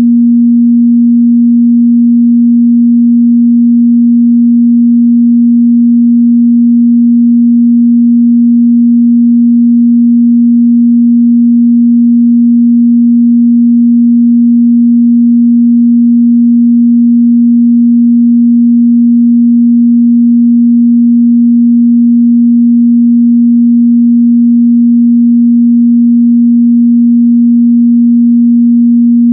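A steady, loud 237 Hz pure sine tone, a single unchanging pitch in the mid-bass, played as a speaker and headphone test tone.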